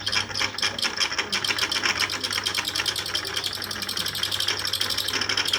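Electric fan running with a fast, steady rattling scrape over the motor's low hum: the noise of a dry, gummed-up motor shaft that needs its old grease cleaned off and fresh oil.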